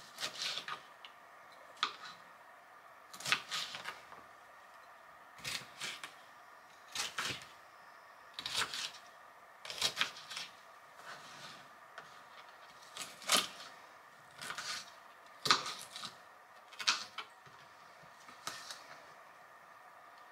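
Chef's knife slicing a bell pepper on a plastic cutting board: short knocks of the blade hitting the board, about a dozen at an uneven pace, some in quick pairs.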